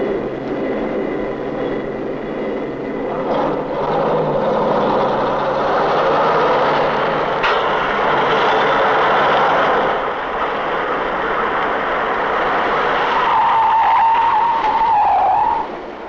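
A car driving fast, its engine and tyres rumbling steadily, ending in a wavering tyre squeal as it brakes near the end.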